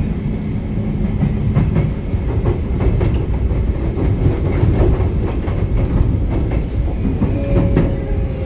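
Sotetsu 9000 series electric train running between stations, heard from inside the car: a steady rumble of wheels on rail with repeated clicks from rail joints. Near the end a motor whine comes in, falling slowly in pitch.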